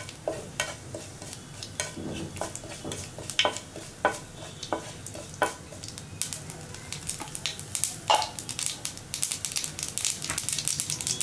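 Mustard and cumin seeds sizzling in hot oil, the mustard seeds popping with sharp cracks, scattered at first and coming much faster and closer together over the last few seconds. The mustard spluttering is the cue that the tempering oil is hot and ready for the next ingredient.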